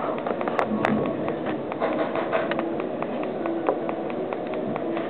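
Homemade 555-timer and op-amp oscillator circuit playing through a speaker: a fast, even ticking of about six to seven clicks a second over short held tones that step between pitches.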